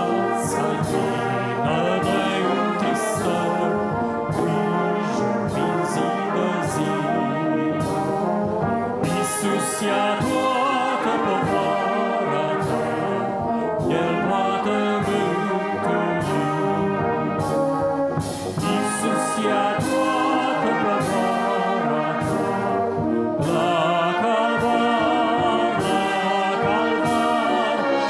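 Church brass band of trumpets, trombones and tuba playing a hymn tune, with a steady percussion beat.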